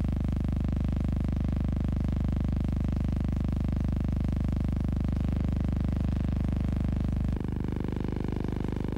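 Steady low electrical hum with a buzzing edge. It has no rowing, water or crowd sound in it, and it changes abruptly to a slightly quieter, differently pitched hum about seven seconds in.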